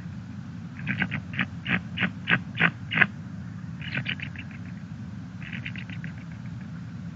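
Bald eagle calling: a run of about eight sharp, high piping notes, each louder than the last, followed by two shorter chittering bursts.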